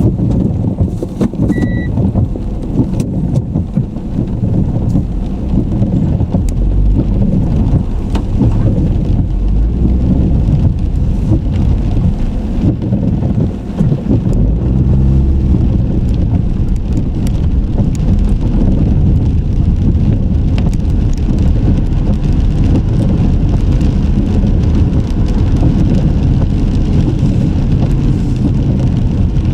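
Car on the move: steady low rumble of road and engine noise picked up by a car-mounted camera, with a short electronic beep about two seconds in.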